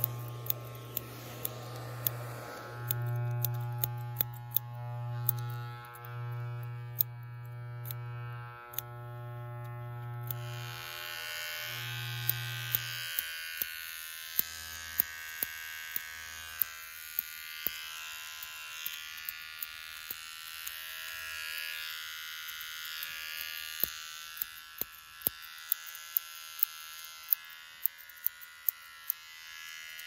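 Electric hair clippers buzzing in several on-off stretches, falling silent about 13 seconds in. From about 10 seconds a steady airy hiss takes over, and sharp snips of barber's scissors click throughout.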